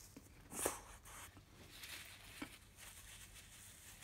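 Faint eating sounds: closed-mouth chewing, with a brief rustle about half a second in and a small click a little past the middle.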